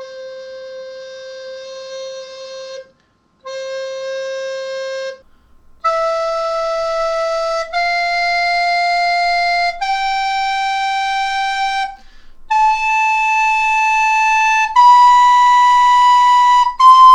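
Plastic soprano recorder playing slow held single notes up a scale for a pitch test: low C twice, then notes stepping up about two seconds each to high C, louder as they climb. The high C sounds slightly flat.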